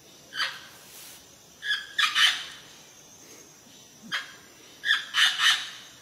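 A green Amazon parrot squawking: a single harsh call followed by a quick run of two or three calls, and the pattern repeated a second time.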